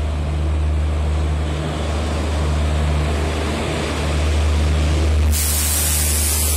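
Indian Railways electric locomotive and its train of AC coaches rolling in along the platform: a steady low hum over the rumble of wheels on rail. A sudden loud hiss joins about five seconds in as the coaches pass.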